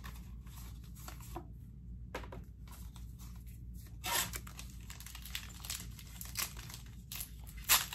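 Soft clicks and rustles of trading cards being handled. About halfway through, a foil booster pack's wrapper starts crinkling as it is pulled from its box and worked in the hands, with a sharper crackle near the end.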